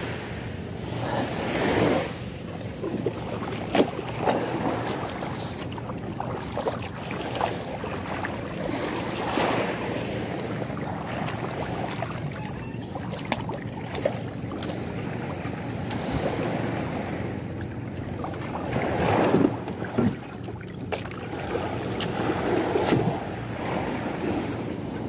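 Small waves washing onto the shore and water lapping around a small wooden outrigger canoe as it is pushed off and paddled, the wash swelling and fading every few seconds. A few sharp knocks stand out above it.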